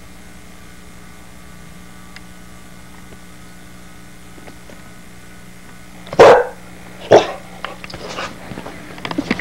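Wheaten terrier puppy barking twice, sharply, about six and seven seconds in, over a steady low hum. The barks are followed by lighter clicks and knocks.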